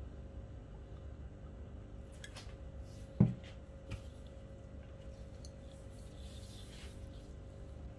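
Quiet kitchen handling sounds: a few faint clicks and one sharp knock about three seconds in, over a low steady hum.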